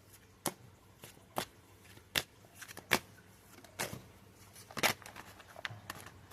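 A tarot deck being handled and shuffled: a series of sharp card snaps and slaps, about six louder ones spaced irregularly with softer riffling between them.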